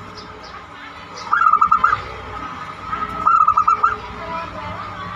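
Zebra dove (perkutut) cooing: two short phrases of rapid staccato notes, about two seconds apart.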